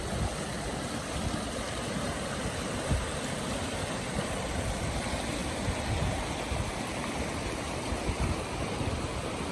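A shallow mountain creek rushing steadily over rocks, with wind buffeting the microphone in irregular low rumbles.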